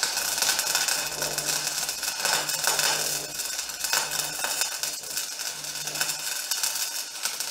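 Wire-feed (MIG) welder crackling steadily as it lays a bead on steel plate, with a low hum from the welder coming and going in short stretches.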